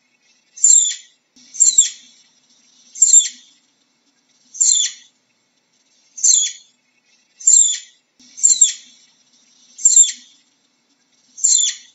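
Flying squirrel calling: a series of high, thin chirps, each falling in pitch, about nine of them spaced a second or so apart.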